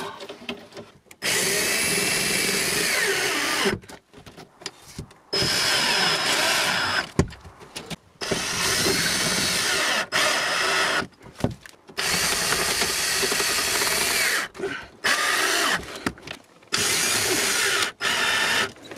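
A cordless drill/driver running in about six trigger pulls of one to two and a half seconds each, with short pauses between. It is driving screws to fasten a vent and its mesh to the wall.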